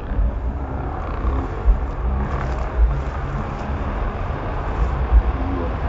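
Grasstrack motorcycle engines running over a heavy, uneven low rumble.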